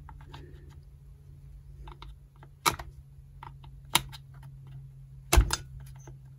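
Light clicks and taps of a screwdriver nudging wires into the slots of a chainsaw's housing, with three sharper clicks among them, over a faint steady hum.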